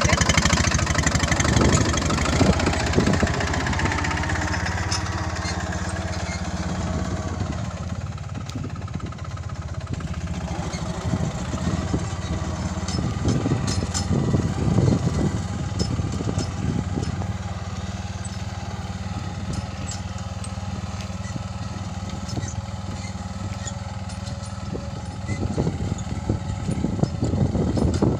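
Captain 28 hp mini tractor's diesel engine running steadily while pulling a tine cultivator through the soil. It is loudest at first, then settles a little quieter before picking up again near the end.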